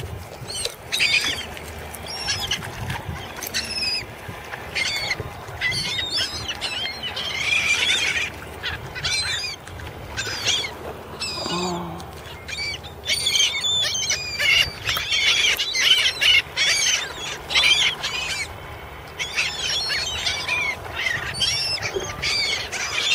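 A flock of gulls calling over and over: many short, overlapping squawks, some of them rising and falling, as the birds wheel and dive to feed on a ball of bait fish.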